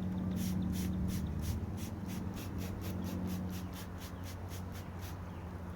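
Honeybees humming steadily, with a quick regular run of scratching strokes, about four a second, that starts about half a second in and stops about a second before the end.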